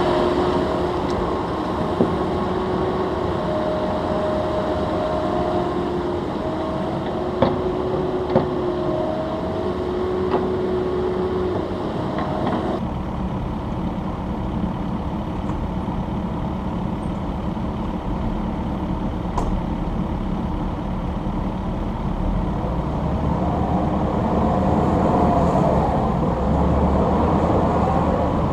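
Diesel engines and hydraulics of a Cat mini excavator and a Kubota compact track loader running steadily during digging. In the first half a hydraulic whine steps up and down in pitch, with a few sharp knocks. The sound changes abruptly about 13 seconds in and grows louder near the end.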